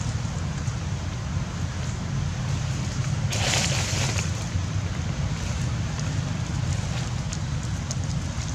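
Steady wind noise on the microphone, with a brief louder hiss about three and a half seconds in.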